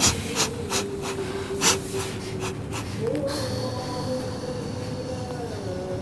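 Slow melodic chanting with long held notes, sliding up to a higher note about halfway through and back down near the end. A run of sharp clicks or taps sounds over it in the first three seconds.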